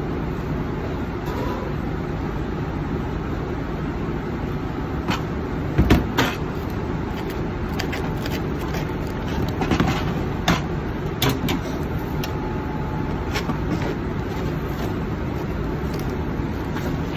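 Steady low rumble with several sharp knocks and clatters, the loudest pair about six seconds in.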